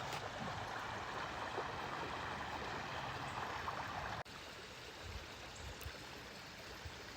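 Stream water flowing: a steady rush that drops suddenly to a quieter level about four seconds in.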